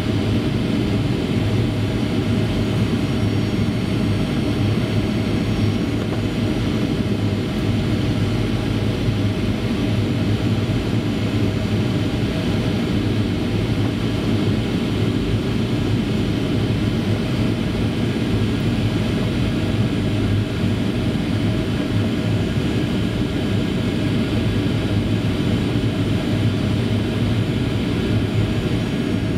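Steady cabin drone inside a jet airliner during its approach, a constant low rumble with no change in level.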